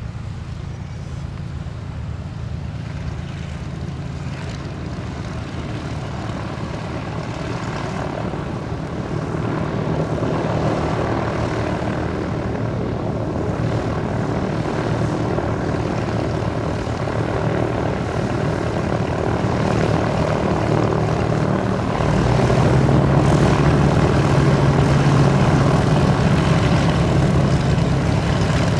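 Reims Cessna F337G Skymaster's two piston engines, one tractor and one pusher, running with a steady propeller drone that grows steadily louder as the aircraft approaches, with a further step up in loudness a little over twenty seconds in.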